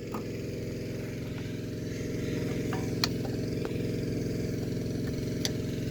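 A steady low mechanical hum, like a motor or fan running, with a few light clicks and taps over it, the sharpest about three seconds in and near the end, as the old TV chassis is handled while its tubes are counted.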